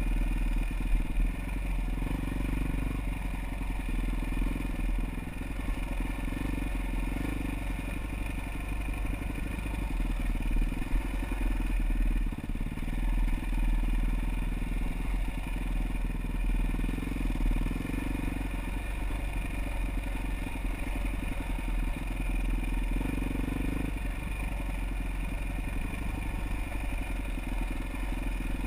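Off-road motorcycle engine running as the bike rides a rough trail, its pitch rising and falling with the throttle, with some clatter from the bike.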